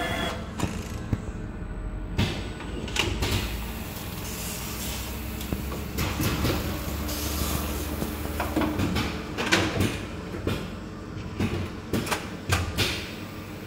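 Automated production line machinery running: a steady low hum of conveyors and motors with irregular mechanical clacks and knocks from the robotic handling stations and plastic parts trays moving along the belts.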